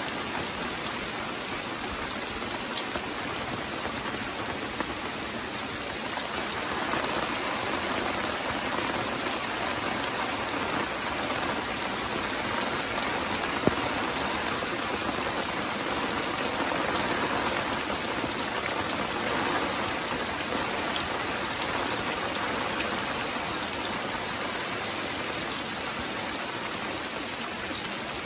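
Steady rain falling, growing a little heavier about a quarter of the way in, with a single sharp tap about halfway through.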